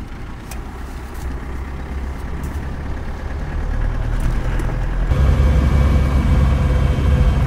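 Truck engine heard from inside the cab as it pulls away, the rumble building a few seconds in. About five seconds in it changes abruptly to the louder, steady engine and road noise of the truck cruising on the open road.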